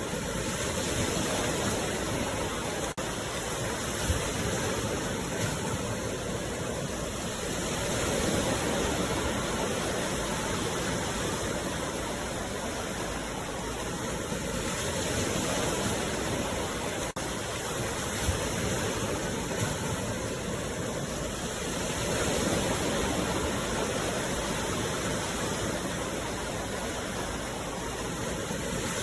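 Sea waves washing onto the shore in a continuous rush that swells about every seven seconds.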